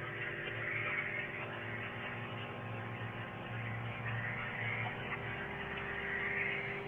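Steady electrical hum with background hiss, as picked up by a doorbell camera's microphone at night.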